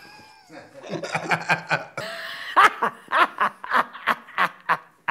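Hearty laughter, a quick run of repeated ha-ha pulses, about three or four a second.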